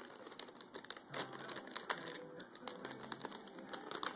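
Plastic snack bag being handled and pulled open, a dense run of quick, irregular crinkles and crackles.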